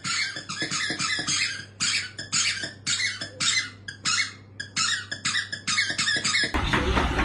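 A dog's squeaky toy squeaking over and over as the dog chews it, about three short squeaks a second in uneven runs. Near the end it gives way to music.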